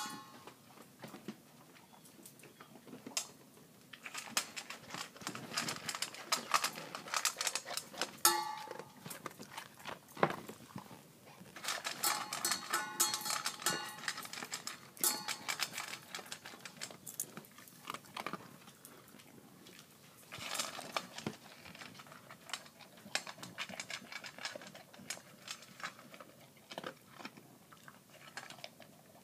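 Golden retriever eating dry kibble: irregular crunches and clicks as it chews, coming in uneven bursts with short lulls between.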